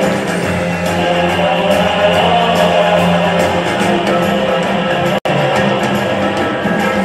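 Guitar-led music playing continuously, with a momentary dropout about five seconds in.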